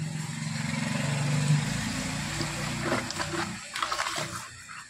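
A motor or engine running with a low hum, loudest about a second and a half in, then fading away near the end.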